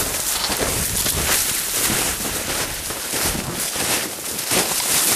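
Crunching footsteps through snow on a trail, with irregular crunches and rustling of clothing and pack close to the camera.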